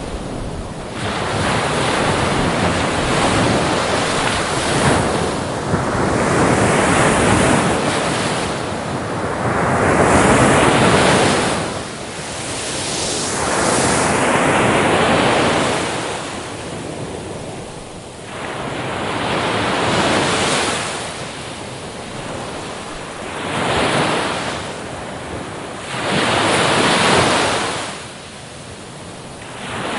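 Sea waves breaking on a shore. The surf swells up and falls back every few seconds, about seven times in a row.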